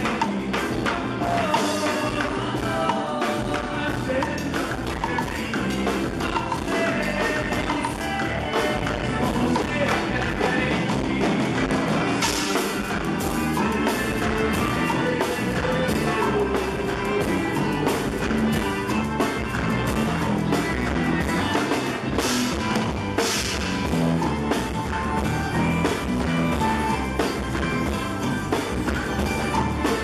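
Live band music led by a drum kit keeping a steady beat under keyboard, with cymbal crashes about twelve seconds in and again twice near twenty-two seconds.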